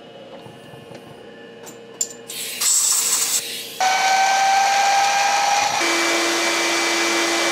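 Small milling machine's spindle running and cutting steel: a counterbore cuts the bolt-head recesses in a steel V-block, then a twist drill bores a hole. It is faint for the first two seconds, loud from about two and a half seconds in with a steady whine, and the whine drops to a lower steady tone near six seconds.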